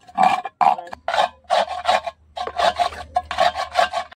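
A black cooking pot being scrubbed by hand during dishwashing, in quick repeated scouring strokes, about three a second.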